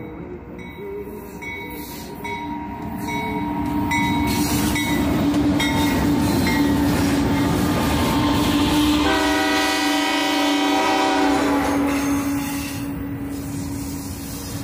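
A train passing, its rumble building over a few seconds and staying loud, with one long blast of its horn-like warning signal about two-thirds of the way through before the rumble eases off.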